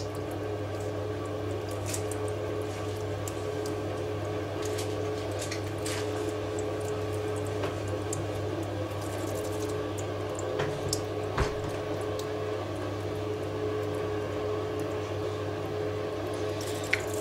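Daishi 300 Tamahagane straight razor honed in strokes across a wet, fine-grained Hatahoshi whetstone held in the hand, with scattered small clicks. A steady low hum runs under it throughout.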